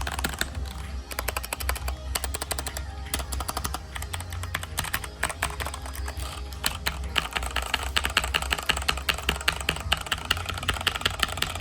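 Rapid, continuous clicking like fast keyboard typing over a steady low hum; the clicks come faster and louder from a little past halfway.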